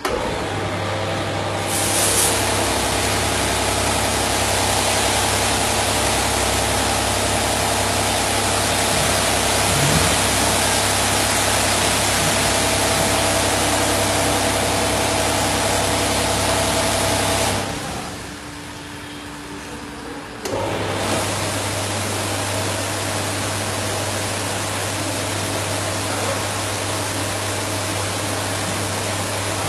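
Automatic motorbike wash booth running: a pump motor's steady hum under the hiss of water jets spraying over a scooter. Both stop for about three seconds a little past the middle, then start again.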